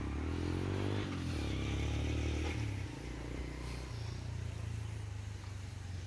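A motor vehicle engine running, rising in pitch over the first second as it revs up, then holding a steady low hum.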